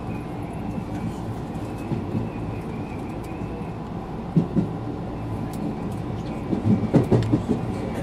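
Electric commuter train running at speed, heard from inside the front car: a steady rumble of wheels on rails, with a few louder surges about four seconds in and again near the end.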